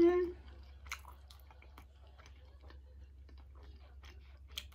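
A person chewing a mouthful of food with the mouth closed: soft wet clicks and smacks. It opens with a short hummed "mm", the loudest sound here.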